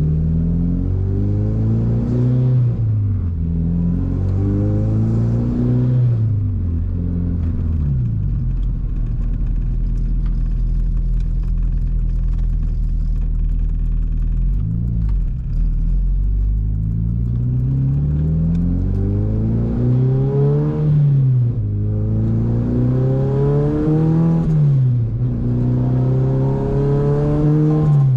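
Honda Civic Si (FA5) K20 four-cylinder engine accelerating through the gears. The pitch climbs on each pull and drops back at each upshift, with a stretch of steady, lower running in the middle before several more rising pulls near the end.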